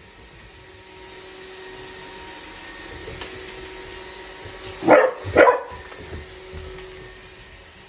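A puppy barks twice in quick succession about five seconds in, at a robot vacuum, over the vacuum's steady running hum.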